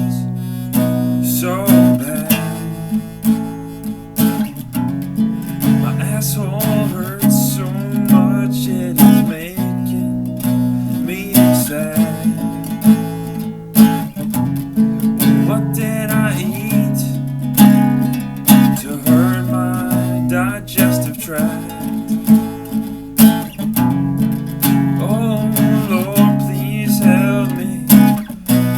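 Music led by strummed acoustic guitar, with steady chords and a regular strumming rhythm.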